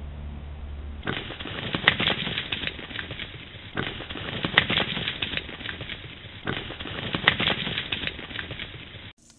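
Dry crackling and clicking rustle in three waves, each starting sharply and fading over about two and a half seconds, from animals moving over dry leaf litter.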